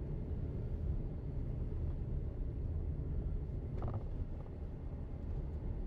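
A car driving along a road, heard from inside the cabin: a steady low rumble of engine and tyres.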